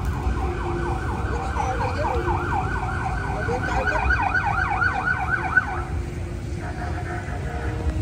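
Emergency-vehicle siren in a fast yelp, its pitch sweeping up and down several times a second. It grows louder and then cuts off about six seconds in, over the low rumble of street traffic.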